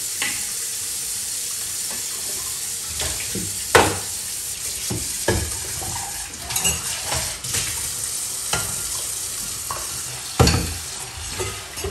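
Kitchen faucet running steadily into a stainless steel sink and splashing over stacked pots and bowls, with dishes clattering as they are rinsed and moved; the sharpest knocks come about four seconds in and near the end.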